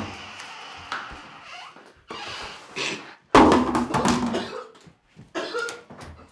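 Knocks and thuds of someone moving about a room, then a man gagging and coughing loudly about three seconds in, with a shorter cough near the end.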